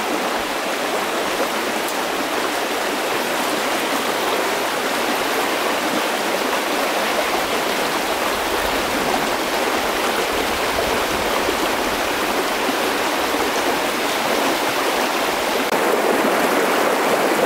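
Shallow rocky river rushing over stones, a steady, even rush of water.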